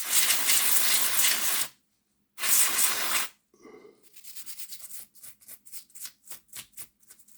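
Aerosol cleaning spray hissing in two bursts, a long one and a shorter one, onto an oily, grass-clogged model locomotive motor and chassis. It is followed by fainter short scrubbing strokes, about three or four a second.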